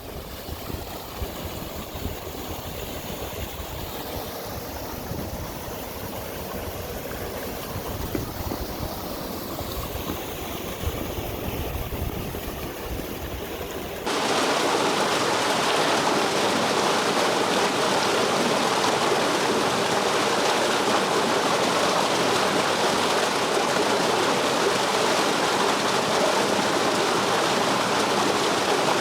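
Wind buffeting the microphone over faint rushing water. About halfway through it switches abruptly to the loud, steady rush of a mountain stream or waterfall close by.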